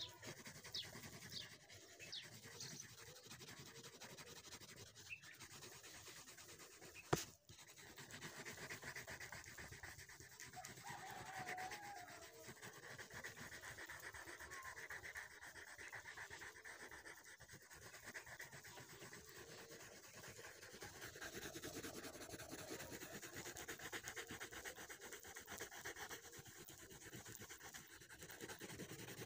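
Green colored pencil rubbing on paper in steady back-and-forth shading strokes. A single sharp click about seven seconds in.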